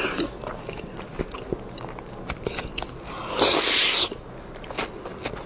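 Close-up wet eating sounds from soft pork brain in chili oil: small smacking clicks of chewing, then a loud slurp lasting under a second, about three and a half seconds in, as a piece is sucked off the chopsticks.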